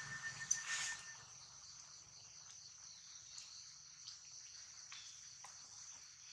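Steady high-pitched chorus of insects shrilling outdoors. A brief louder noise comes in the first second, and faint scattered clicks follow.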